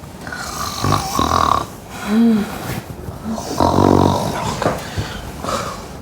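A woman snoring loudly in sleep, in separate rattling snores. About two seconds in there is a short whistling breath that rises and falls in pitch, and around the middle comes a long, buzzing rattle.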